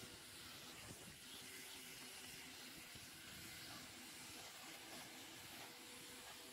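Faint, steady hiss of a pressure washer's water jet spraying concrete roof tiles.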